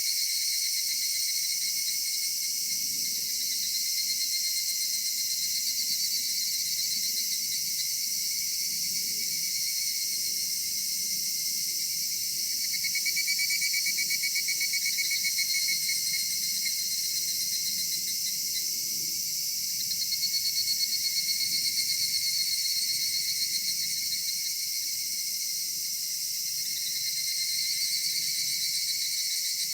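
A chorus of cicadas calling in a cedar forest: a dense, high-pitched, pulsing drone made of several overlapping callers, swelling louder twice as nearer insects join in and fade.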